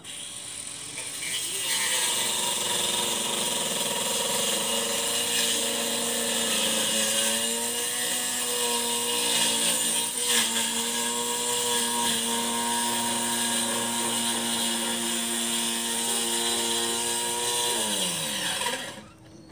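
A small engine running at a steady pitch, then winding down with a falling pitch and fading out near the end.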